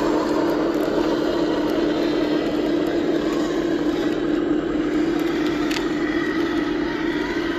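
Radio-controlled dump truck's electric drive motor and gearbox running with a steady whine.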